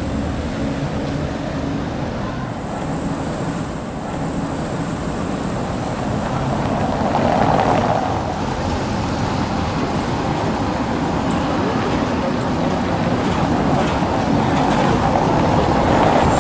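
Škoda 15T low-floor tram running along street rails: steady rolling and motor noise that swells as it passes close, about halfway through and again near the end.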